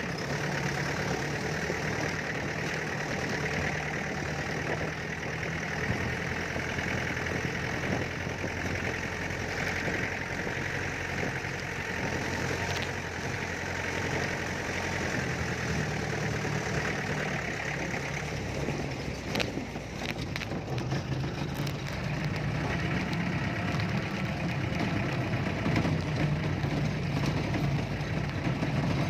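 Mahindra DI direct-injection diesel engine running steadily at idle, its raw exhaust note carrying a diesel knock.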